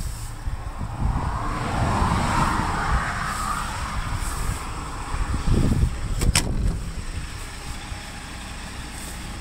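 Low rumble of wind and handling noise on the microphone, with a short noisy rustle early on and a sharp double click-clack about six seconds in.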